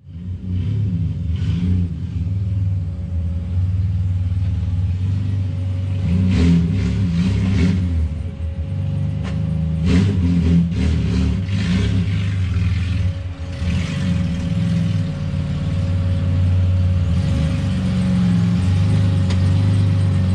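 Straight-piped Ford AU Falcon engine running with a low drone, the revs rising briefly about six seconds in and again about ten seconds in.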